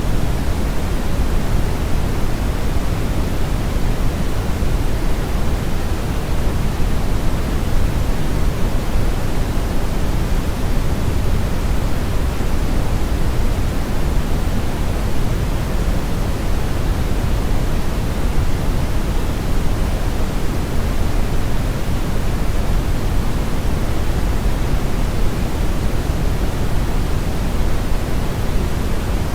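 Synthetic brown noise blended with white noise: a steady, even hiss, deepest and strongest in the low end and thinning toward the top, with no change at any point.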